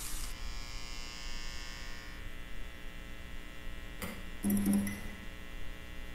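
Electronic logo-intro sound effect: a long, held tone that fades slowly, with a short hit about four seconds in and a brighter note after it.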